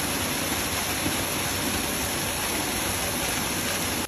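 Steady, loud rush of flowing water, an even hiss with no rhythm that cuts off suddenly near the end.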